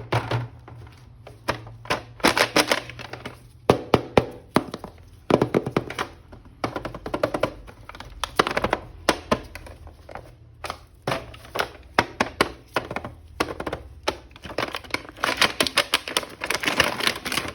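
Plastic toy action figure and its packaging being handled during unboxing: irregular clicks, taps and crinkling, busiest in the last few seconds.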